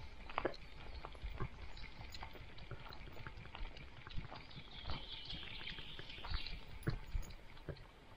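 Close movement noise from a dog wearing a camera: scattered short knocks and rustles over a low rumble, with a hissing stretch about halfway through.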